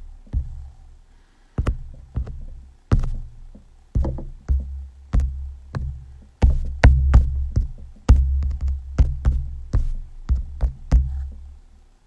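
Electronic music with deep bass and sharp drum-machine hits.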